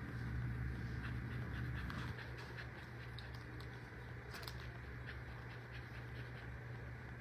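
Felt-tip marker scratching on paper in short strokes as an area is coloured in, over a steady low electrical hum.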